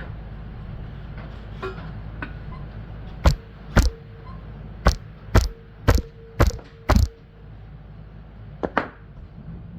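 Hammer blows on a metal engine part: about eight sharp strikes in quick succession from about three seconds in, some leaving a faint ringing tone, then two more near the end.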